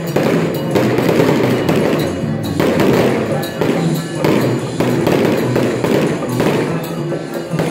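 Loud temple-procession music and percussion, with dense crackling firecrackers and thumping hits throughout.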